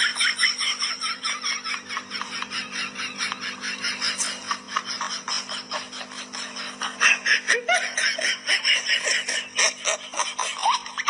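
A person laughing in rapid short bursts, several a second, with a steady low hum underneath.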